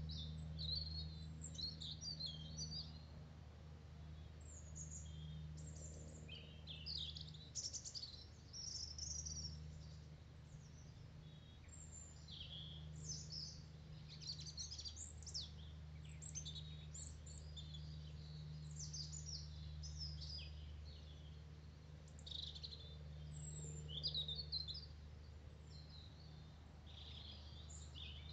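Small songbirds chirping and singing in short, repeated phrases, over a steady low background hum.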